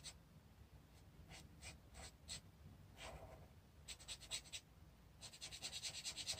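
Marker nib scratching on toothy cartridge paper in short colouring strokes. There are a few scattered strokes at first, then a fast run of back-and-forth strokes over the last second or so.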